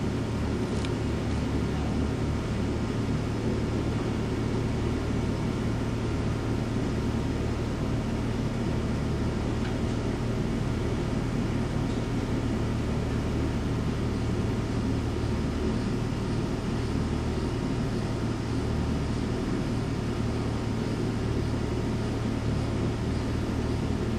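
Steady hum of running machinery: a constant low drone with faint steady tones above it, unchanging throughout.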